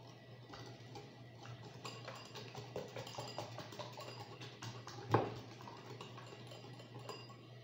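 Wire whisk beating eggs and sugar in a cut-glass bowl, a quick run of light clicks and clinks against the glass, with one louder knock about five seconds in. The eggs and sugar are being whisked until the sugar dissolves.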